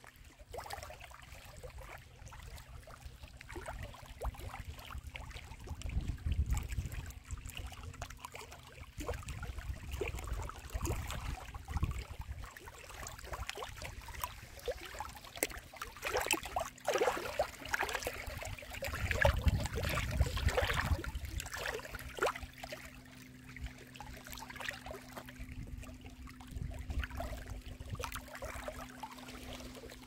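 Small lake waves lapping and splashing irregularly against a stony shore in the shallows. The splashing is busiest about two-thirds of the way through. Low rumbles swell up now and then under it.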